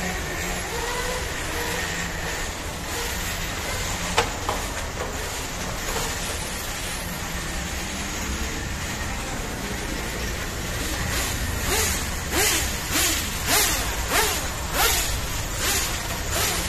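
Electric 1/10 RC touring cars running on a track over steady background noise, with one sharp click about four seconds in. From about eleven seconds in comes a quick run of passes, each a short whoosh with a brief pitch glide, about two a second.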